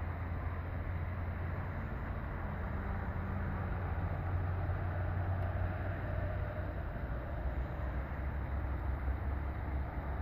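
Wind rumbling on the microphone outdoors: a steady low noise with no distinct events.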